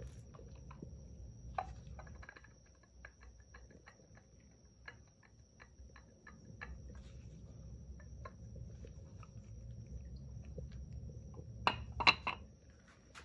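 Scattered small clicks and taps of a metal water pump being handled, then a short cluster of louder knocks near the end as the pump meets the concrete floor.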